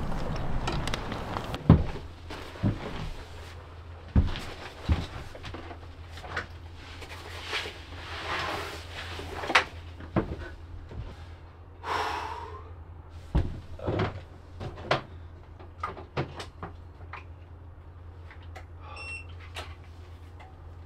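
Scattered knocks, bumps and rustling of a person climbing down through a deck hatch into a fibreglass boat hull and moving about inside, over a low steady hum.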